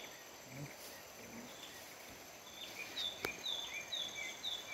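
Wild green leafbird (cucak ijo) singing a quick run of whistled notes, each dropping from high to lower pitch, faint at first and clear and louder from about three seconds in. A steady high insect buzz runs behind, and a single sharp click sounds a little after three seconds.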